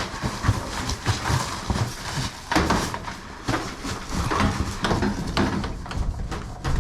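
Irregular knocks, clicks and scraping as plumbing pipe is handled and moved about, in a small enclosed space.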